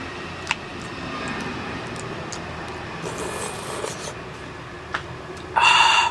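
Eating soup with a metal spoon from a bowl: a few sharp spoon clicks, then near the end a loud half-second scrape of the spoon in the bowl.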